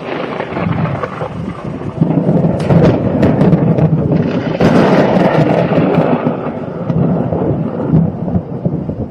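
Thunder: a loud rumble that jumps up about two seconds in with a few sharp cracks, swells again near the middle, then slowly dies away.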